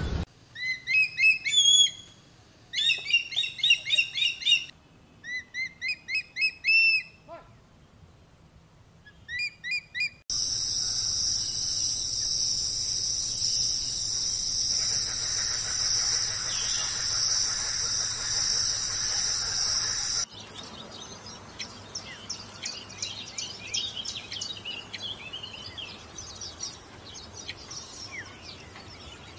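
Birds calling, with several short runs of quick repeated chirps. About ten seconds in, a steady high-pitched buzz starts and runs for about ten seconds before cutting off suddenly. Fainter chirping follows.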